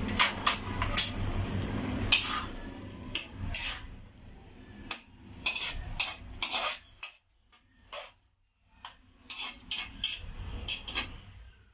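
A metal spatula scraping and clinking against a wok in irregular strokes while chicken liver and gizzards are stirred in a little liquid. The strokes pause briefly about seven seconds in.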